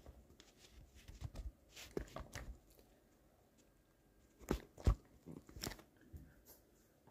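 Faint, irregular clicks and small knocks from handling a computer mouse at the desk, in two short clusters about a second in and again around four and a half seconds in.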